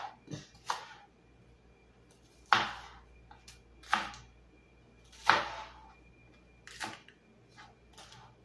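Kitchen knife cutting through spring onions onto a plastic cutting board: a series of sharp single knocks at uneven intervals, about nine in all.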